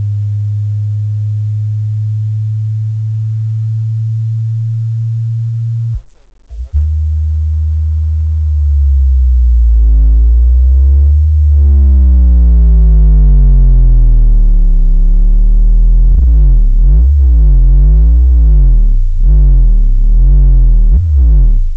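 Bass test tones played loud through Alpine Type-R 12-inch subwoofers for a resonance test. A steady low tone cuts out briefly about six seconds in and comes back deeper. From about nine seconds the tones sweep up and down in pitch, faster and faster toward the end.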